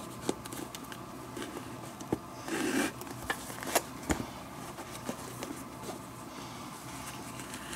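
Handling noise from lacing a 1950s Wilson leather baseball glove: a leather lace and metal lacing needle are worked through the web. Scattered light clicks and taps, with a short rubbing scrape about two and a half seconds in as the lace is drawn through.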